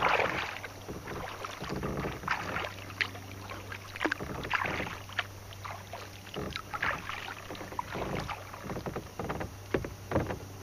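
Kayak paddle strokes: the blades dip and splash in the river every second or two, with water trickling off them and a few sharp ticks between strokes.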